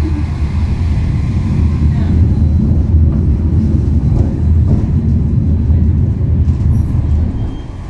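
Tram running along its rails, heard from inside the car as a loud low rumble that drops away near the end.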